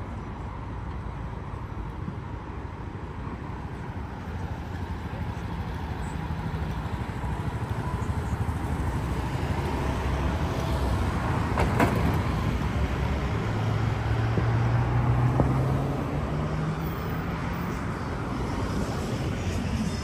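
Street traffic with a motor vehicle's low engine hum. The hum grows louder to a peak a little past the middle, rises briefly in pitch, then eases off.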